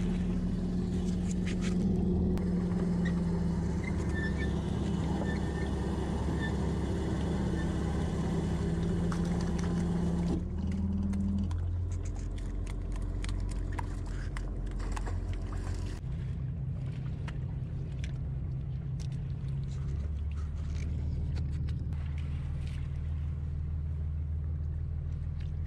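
Small fishing boat's engine and net hauler running with a steady low drone. The pitch shifts about ten seconds in and again about sixteen seconds in, with scattered clicks and knocks as the net and catch are handled on deck.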